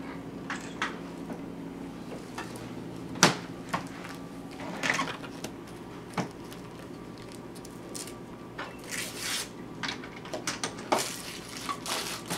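Gift wrapping paper and cardboard toy boxes being handled: scattered crinkles and rustles with light knocks, the sharpest knock about three seconds in.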